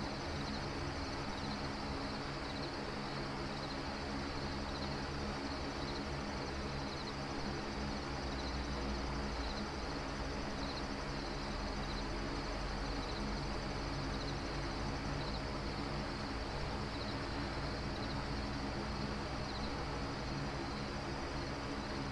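Steady ambient background of low rumble and hum, with faint short high chirps recurring every second or two.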